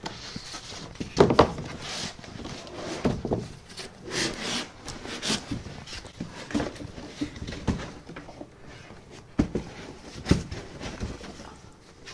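Cardboard sheets and foam packing blocks being shifted and lifted, with irregular scraping and rustling and a few sharp knocks.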